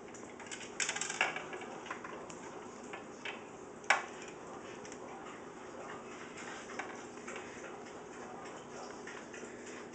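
Cat eating dry kibble from the plastic bowl of a gravity feeder: an irregular run of small crunches and clicks of kibble against plastic, with a cluster of louder clicks about a second in and one sharp click about four seconds in.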